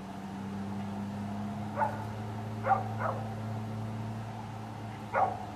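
A dog barking: four short barks, one about two seconds in, two in quick succession a second later, and one near the end, over a steady low hum.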